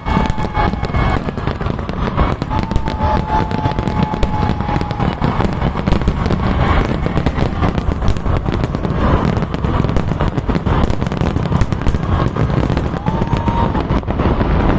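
Fireworks display: a dense, unbroken barrage of bangs and crackles over a steady low rumble, with a couple of held tones rising over it.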